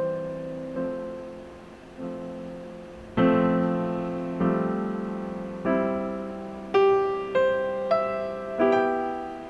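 Background piano music: unhurried notes and chords struck about once a second, each ringing and fading away, coming a little quicker near the end.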